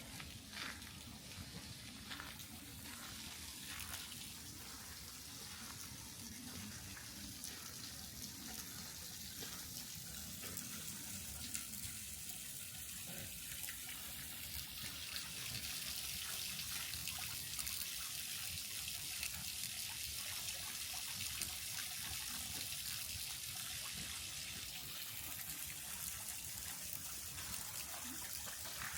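Water running steadily, a continuous splashing hiss that grows louder about halfway through.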